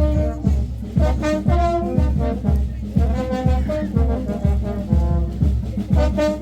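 Upbeat music with a brass melody over a steady bass beat of about two beats a second.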